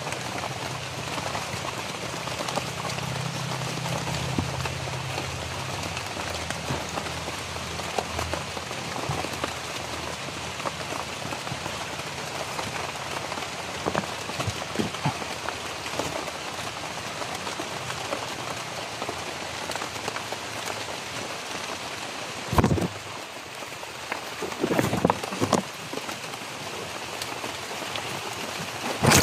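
Steady rain falling on broad leaves of dense tropical vegetation. It is an even patter, with a few louder close knocks near the end.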